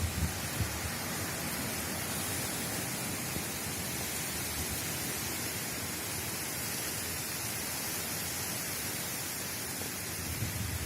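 Steady hiss of a heavy rain shower, with a few low rumbles in the first second and again near the end.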